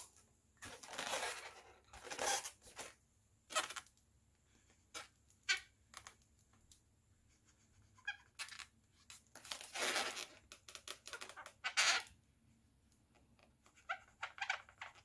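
Latex twisting balloons squeaking and rubbing in the hands while a permanent marker draws eyes on one: short scattered squeaks and rubs with quiet gaps between.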